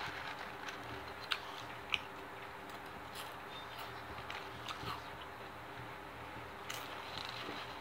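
Spicy Doritos tortilla chips being bitten and chewed: scattered short, sharp crunches and clicks over a steady low hum, the loudest crunch near the end.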